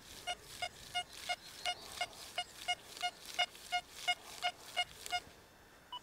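XP Deus II metal detector on its general program giving short, mid-pitched beeps about three times a second as the coil passes over a low-conductive target reading about 30. The beeps stop about five seconds in, and one higher beep follows near the end.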